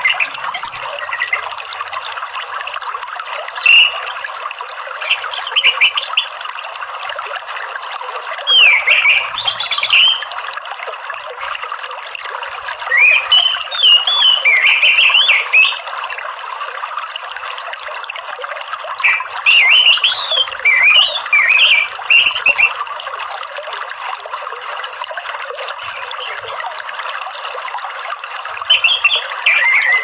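Orange-headed thrush singing short, quickly gliding phrases every few seconds over a steady rush of running water.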